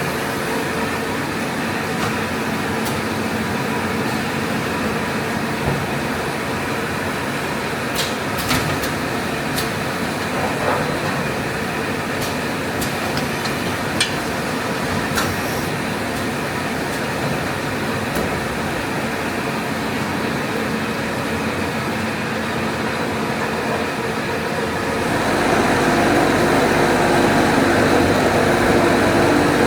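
ATR-320B automatic turret rewinder running at production speed: a steady mechanical hum and whir with a few sharp clicks, growing louder near the end.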